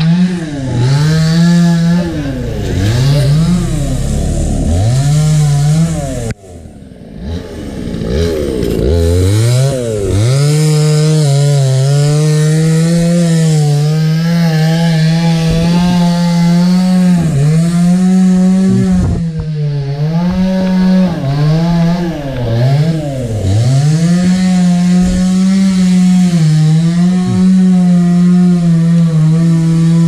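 Chainsaw running at high revs, its pitch dipping and climbing back again and again as it cuts into fallen branches. About six seconds in it drops off briefly, then revs back up.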